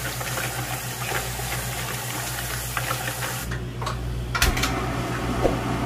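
Water from a spray faucet running into a pan of whelks while gloved hands scrub and rattle the shells; the running water cuts off abruptly about three and a half seconds in, followed by a few light knocks. A steady low hum runs underneath.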